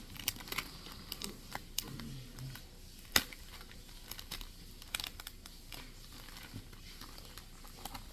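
Plastic bags and tape crinkling and crackling as a paper squishy stuffed with plastic bags is handled and taped shut, with a sharp click about three seconds in.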